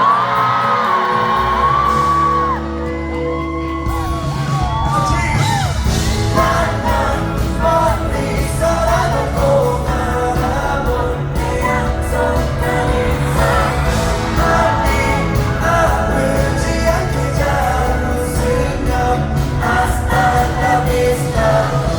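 Live K-pop music played loud over a concert sound system, with singing. Sung lines glide at the start, then a deep bass and steady beat come in about a second in and fill out into full band music.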